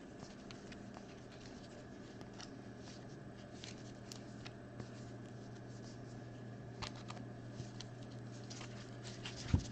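Trading cards being handled and sorted by hand on a table: scattered soft clicks and slides of card stock over a steady electrical hum, with a louder thump just before the end.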